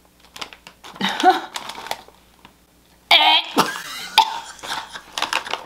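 A woman gagging and retching at the fishy smell of shrimp chips, with a sudden loud retch about three seconds in followed by more gagging sounds.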